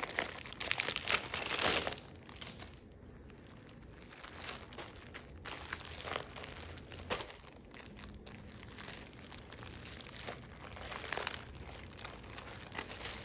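Plastic packaging crinkling as it is handled, dense and loud for the first two seconds, then quieter scattered crinkles and light ticks.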